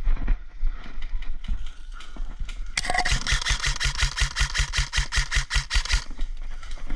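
Airsoft gun firing a rapid full-auto burst of about three seconds: an even string of sharp shots, roughly six a second, starting a little before halfway through. Scattered clicks and knocks come before it.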